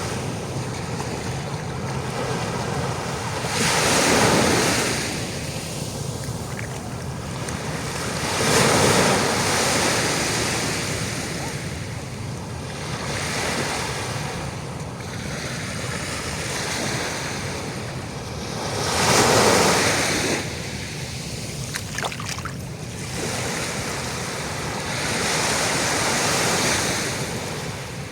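Ocean waves breaking and washing onto the shore, with a steady surf wash between them. Four waves stand out, about 4, 9, 19 and 26 seconds in, each swelling and fading over a second or two.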